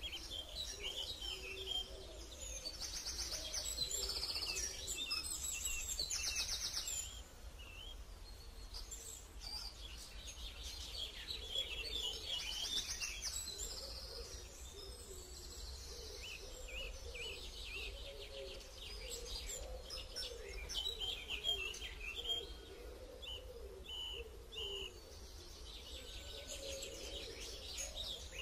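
Many short, high-pitched chirping calls coming and going throughout, over a low steady rumble.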